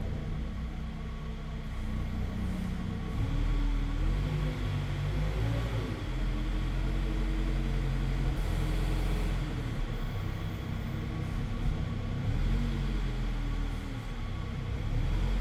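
Schäffer 9530T telescopic wheel loader's engine and hydraulics running, heard from inside the cab, while the telescopic boom extends. The pitch rises and falls several times as the boom is worked.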